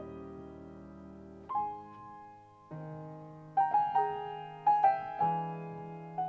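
Solo upright piano playing a slow passage: a held chord dies away, then new chords are struck every second or so, with short runs of quicker notes in the middle.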